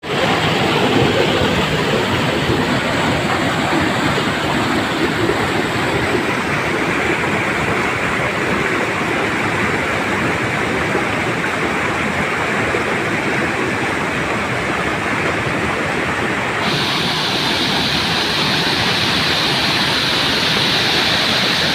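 Waterfall: a steady, loud rush of falling water, turning brighter and hissier from about three-quarters of the way through.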